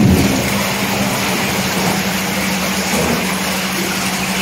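Kadda Aisha hydromassage bathtub's pump running with the massage jets churning the water: a steady motor hum under a broad, even rush of water. It is running normally on its first test.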